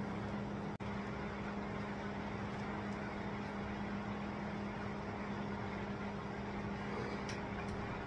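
A steady low hum over constant hiss, unchanging throughout, with a brief dropout just under a second in.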